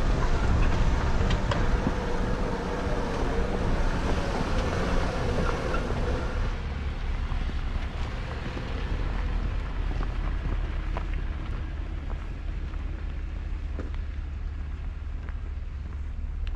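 Wind rumbling on the microphone over a vehicle running on a dirt trail. A steady hum is heard for the first six seconds or so, and then the sound turns duller.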